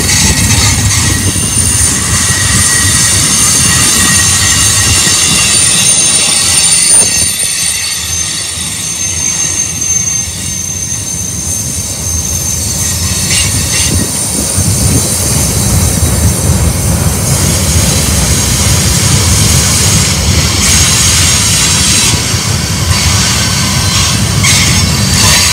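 Freight cars of a manifest train rolling past close by: a steady heavy rumble of wheels on rail with thin, high wheel-squeal tones over it and a few clicks. The rumble eases a little about a third of the way in, then builds again.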